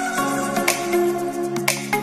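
Electronic background music with sustained chords and a steady beat.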